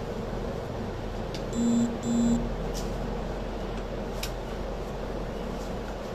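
Two short electronic beeps, each about a third of a second and half a second apart, a couple of seconds in, over a steady low hum.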